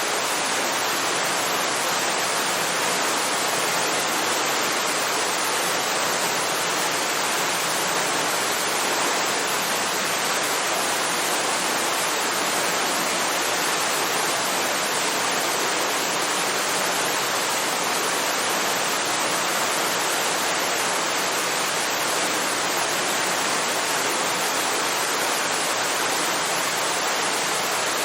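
Waterfall, its water falling in a steady, unbroken rush.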